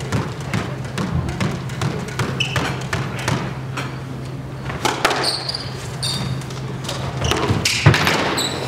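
Squash rally: the ball smacking off racquets and the walls again and again, with court shoes squeaking on the hardwood floor several times, over a steady low hum.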